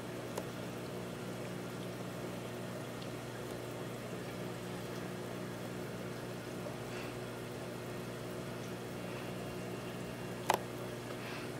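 Aquarium running: a steady hum from its pump or filter, with water bubbling at the surface. One short click near the end.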